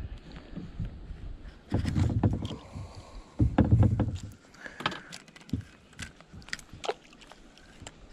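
Knocks, clicks and bumps of gear being handled in a small boat on the river, with two heavier low thuds about two and four seconds in.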